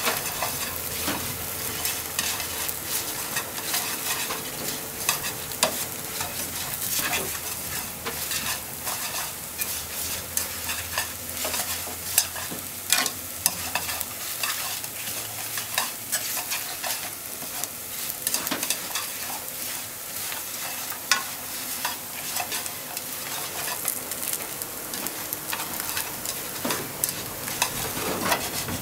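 Bread crusts frying in a nonstick frying pan, sizzling, with many quick clatters and scrapes as a spatula stirs and tosses them against the pan.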